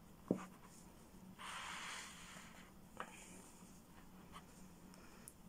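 Faint rustling of a plush-yarn crochet doll being handled while a sewing needle and thread are worked through it. There is a soft rustle lasting about a second, starting around a second and a half in, and a few small ticks.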